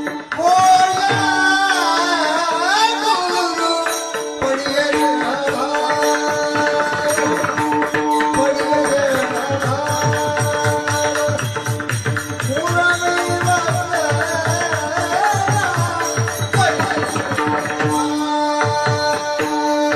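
Marathi devotional bhajan singing: a solo voice in long, gliding, ornamented phrases over a steady drone. A hand drum and jingling percussion keep the rhythm.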